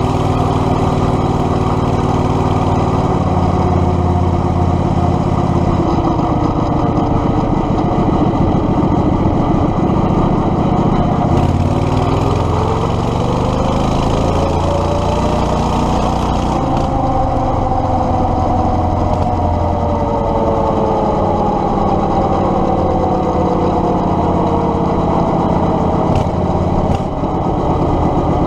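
Predator 670cc V-twin engine of a Yerf Dog 3203 go-kart running under way. About halfway through its pitch climbs over several seconds as the kart speeds up, then slowly falls back as it eases off.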